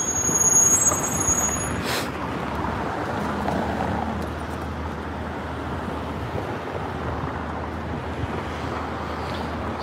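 City street traffic: cars driving past close by, a steady rush that swells briefly about a second in. A short click about two seconds in.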